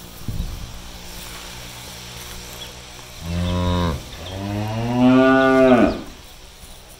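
A cow mooing twice: a short moo about three seconds in, then a longer, louder moo whose pitch rises and then drops away as it ends.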